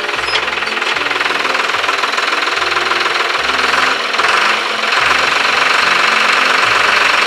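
Loud background rock music with heavy distorted guitars and a bass line that shifts between held notes.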